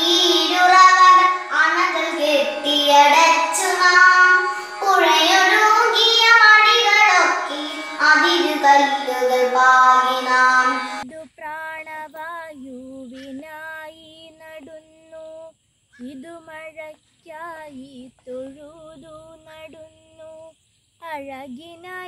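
A girl singing a song in a child's voice, loud and full; about eleven seconds in it cuts to another girl singing alone, quieter, in short phrases with brief pauses between them.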